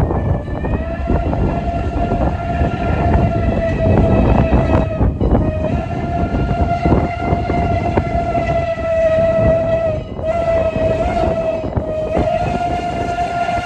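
Strasburg Rail Road No. 89, a 2-6-0 steam locomotive, blowing its whistle in long held blasts with short breaks about five and ten seconds in, over the low rumble of the passing train.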